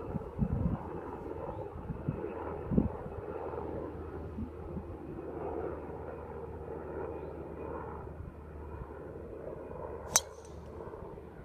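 A single sharp crack of a driver striking a golf ball about ten seconds in, over a steady background rumble, with a few dull low thumps near the start.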